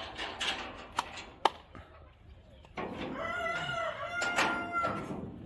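A rooster crowing once, a long call of about two seconds starting near the three-second mark. It is preceded by two sharp knocks about half a second apart.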